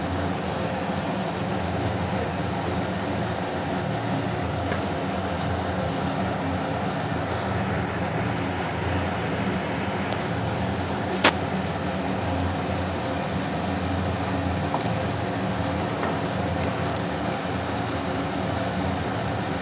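Stovetop cooking in a nonstick frying pan: a steady hum and hiss while a potato mixture is stirred with a spatula, with one sharp tap on the pan about eleven seconds in.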